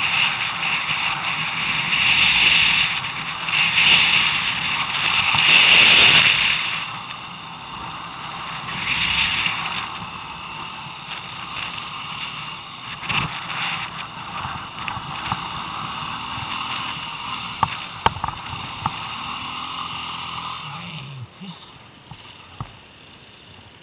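ATV engine running while the quad is ridden over snow, revving up in several surges in the first ten seconds, then holding steady before dropping off near the end. A few sharp clicks come late on.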